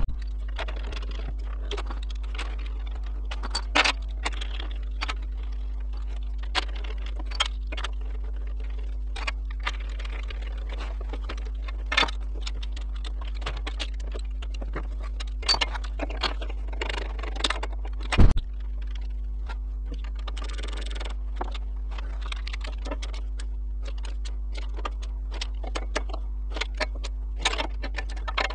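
Hand tools and bolts clinking and clicking on the metal transmission casing of a quad as the casing bolts are put in and tightened, over a steady low hum. There is a louder knock about 18 seconds in.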